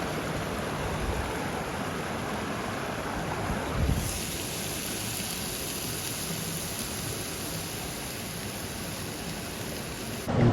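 Steady running water of a river stream. About four seconds in there is a brief low knock, after which a high hiss grows brighter.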